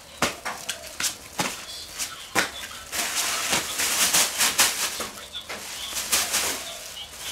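A live giant gourami flopping on bare concrete: a run of sharp slaps of its body and tail against the ground, coming thickest around the middle.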